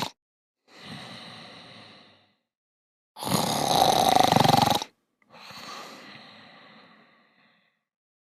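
Snoring for sleeping robots, done twice. Each time a loud rasping snore on the breath in is followed by a softer, fading breath out, with short pauses between.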